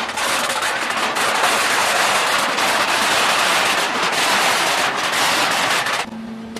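Aluminum cans crackling and crunching as a scrap-metal baler compacts them, a dense unbroken crackle. About six seconds in it stops suddenly, leaving the machine's steady hum.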